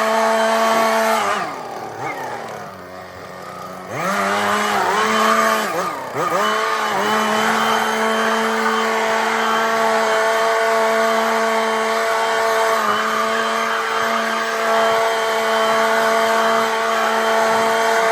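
Small engine running at high speed, dropping to a lower idle about a second and a half in and again briefly around six seconds, revving back up each time, then running steadily.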